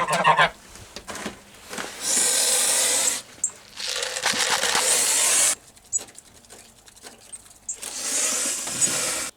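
Birdseed being poured into a bird feeder: three spells of steady rattling hiss, each about a second long, with short pauses between.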